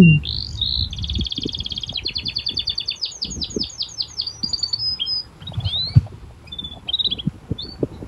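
Small birds chirping in fast trills of repeated high notes, one run after another, with a brief loud falling-pitched sound right at the start. A tractor engine hums low underneath in the first second or so, then fades.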